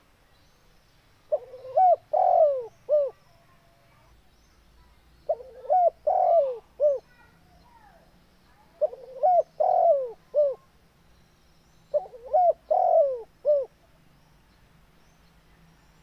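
Spotted dove cooing: four phrases about three and a half seconds apart. Each phrase is a quick pair of short notes, a longer bending middle note and a short final note.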